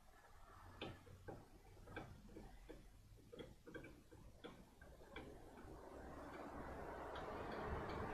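Faint, irregular light metallic clicks and taps, roughly two a second, from handling parts while the front brake caliper is being refitted. A rushing noise swells up over the last two seconds or so.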